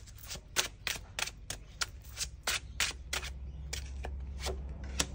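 A tarot deck being shuffled by hand: a run of crisp card clicks about three or four a second, spacing out somewhat in the second half.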